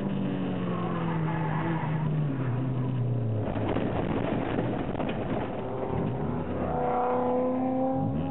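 Honda B16A 1.6-litre VTEC four-cylinder in an EG Civic race car, heard from inside the cabin: the engine note falls over the first three seconds as the car slows, gives way to a stretch of tyre skidding noise through the middle, then the revs climb again near the end.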